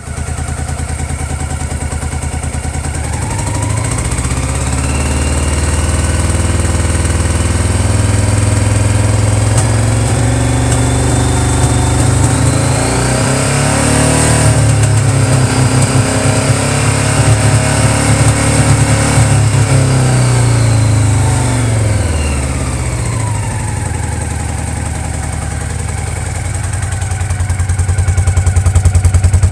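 Honda PC800's V-twin engine idling, then slowly revved up, held at higher revs and let back down to idle. At the higher revs it runs unevenly. This is a misfire above 2600 rpm that the owner suspects comes from faulty pulse generators.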